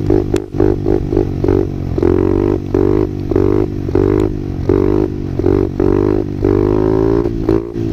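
Small 50cc pit bike engine revving and easing off in quick repeated pulls of the throttle, its pitch rising and falling with each one, over a steady low drone.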